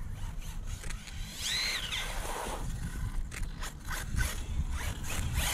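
Hyper 10 SC electric short course RC truck driving on asphalt under its sensored Reedy brushless motor, freshly rebuilt with a new rotor. The motor whine rises and falls once about a second and a half in, over a constant low rumble.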